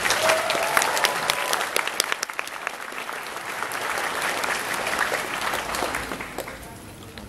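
Audience applauding, starting loud and fading out near the end.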